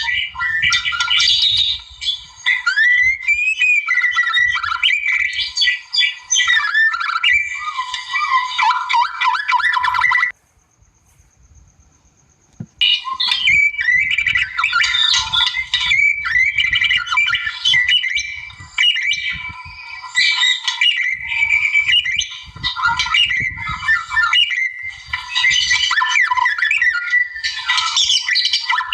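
White-rumped shama (murai batu) singing a loud, fast, varied song of rich whistles, chatters and sliding notes. The song breaks off for about two seconds a third of the way through, then resumes just as full.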